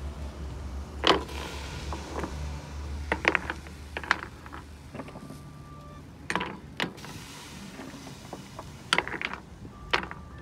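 Irregular sharp knocks and clicks of hard objects, about eight of them spread unevenly, over a low steady rumble that fades out about two and a half seconds in.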